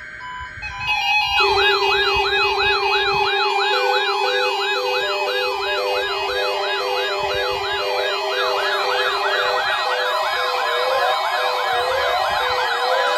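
Electronic sirens yelping, a quick rising-and-falling tone about twice a second, starting about a second in after a brief steady tone. Under them run a steady low tone and a short beep repeating about once a second, and more sirens pile in, overlapping, from around eight seconds.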